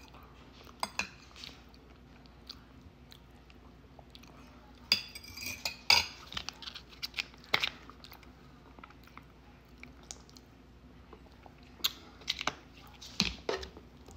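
Quiet eating: chewing, with a metal fork clicking and scraping on a ceramic plate now and then. A small sauce packet rustles around the middle.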